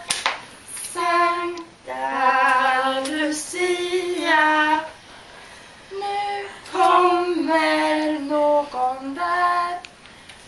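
A woman and a child singing together without accompaniment, a slow tune in long held notes broken into short phrases. A short sharp knock sounds right at the start.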